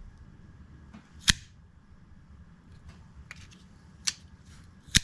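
Kershaw pocket knife's blade being flicked open and snapped shut, giving three sharp clicks: one about a second in, a smaller one near the end, then a loud one at the end. The clicks are the blade locking and closing on its freshly cleaned and reassembled pivot, which now has a lot more snap to it.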